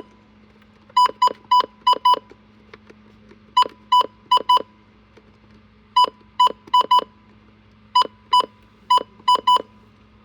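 Weather alert radios sounding their alarm for a received severe thunderstorm warning: short, sharp electronic beeps in clusters of four to six, a cluster about every two and a half seconds.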